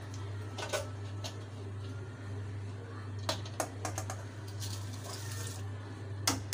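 Soaked rice tipped from a bowl into a steel pot of nearly boiling spiced water, then stirred with a metal slotted spoon: scattered clicks and taps of metal on metal, with a short hiss about five seconds in as the rice goes into the water. A steady low hum runs underneath.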